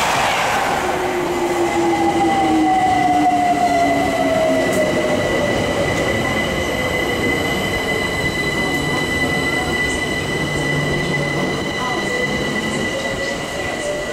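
Electric trains at a station platform. The rush of a Virgin Pendolino passing at speed fades in the first second. Then a London Overground electric train's motor whine drops in pitch as it slows and rises again near the end, over a steady high-pitched squeal.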